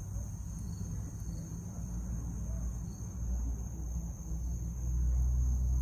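Steady high-pitched chirring of crickets or other insects over a low rumble that swells about three seconds in and again near the end.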